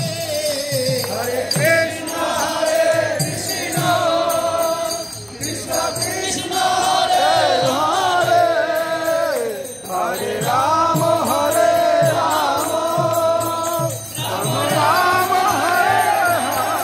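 Group of marchers singing a devotional chant in phrases of about four seconds, over a steady rhythmic beat with hand clapping.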